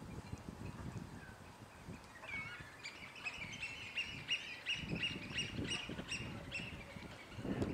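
Birds on the tidal mudflats calling: a quick run of many short, high, repeated notes starting about two seconds in and stopping near the end, over a low rumble.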